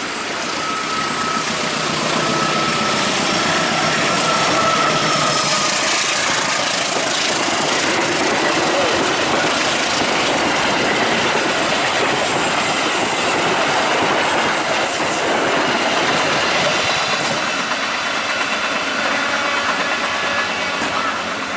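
Train passing at speed close by: steady rolling noise and clatter of wheels on the rails, swelling about two seconds in and easing near the end, with a faint thin squeal in the first few seconds.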